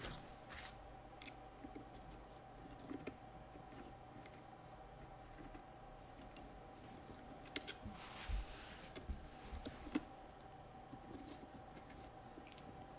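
Faint scattered clicks and taps of a small screw, washer and brass battery shunt being handled and fitted onto a battery terminal, a few close together about eight seconds in, over a faint steady hum.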